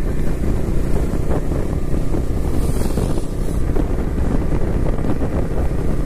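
Wind buffeting the microphone on a moving motorcycle, with the bike's engine running steadily underneath at a cruise.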